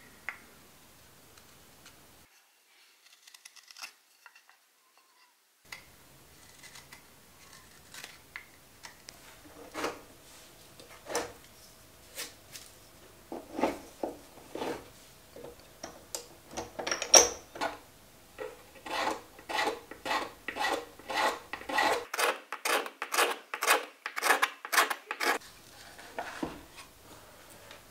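Hand tools working a maple wooden spoon on a wooden workbench: scattered scrapes and light knocks, then a run of quick repeated scraping strokes in the second half.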